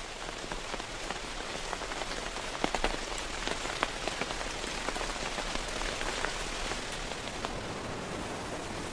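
Steady rain falling, an even hiss with many scattered individual drops ticking through it.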